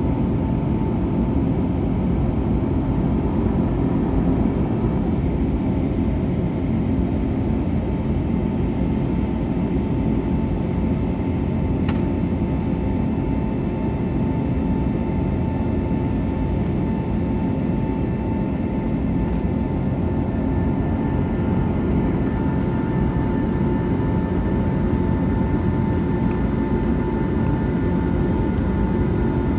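Cabin noise of an Airbus A321neo climbing just after takeoff, heard inside the cabin beside the engine: a steady, dense rumble from its Pratt & Whitney PW1100G geared turbofans with a constant hum riding over it.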